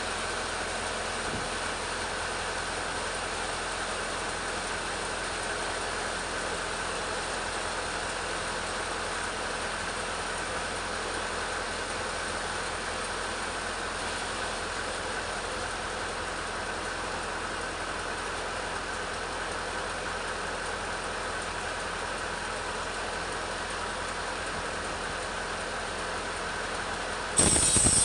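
Petrol chainsaw engine running steadily at low speed. Near the end a sudden, louder and brighter sound cuts in.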